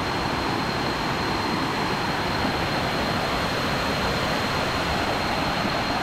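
Jungle stream rushing and splashing over rocks in small cascades, a steady even rush of water. A thin, steady high tone sits above it.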